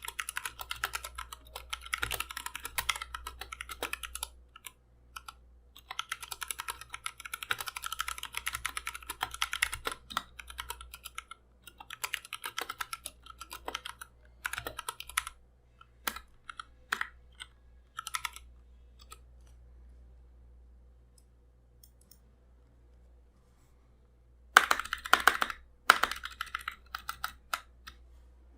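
Mechanical keyboard with Akko CS Lavender Purple switches being typed on in fast bursts of clacky keystrokes, with short pauses between runs. Near the end, after a few seconds of quiet, comes the loudest burst of keystrokes.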